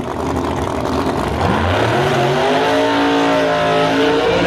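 Drag racing car's engine at full throttle, its pitch climbing for about a second and then holding high and steady.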